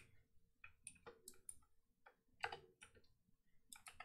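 Faint, scattered keystrokes on a computer keyboard, a few quick taps at a time with short pauses between, as a line of code is edited.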